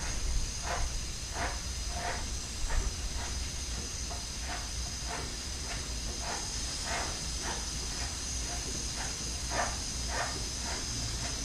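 Aerosol can of Bel-Ray chain lubricant spraying in a steady hiss onto a motorcycle drive chain as the rear wheel is turned by hand, with light clicks repeating about every half second to a second from the moving chain.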